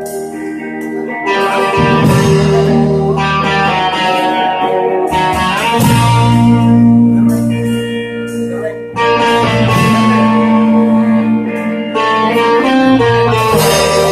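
Live rock band playing an instrumental passage: electric guitar chords ringing over bass and cymbals, the chords changing every few seconds.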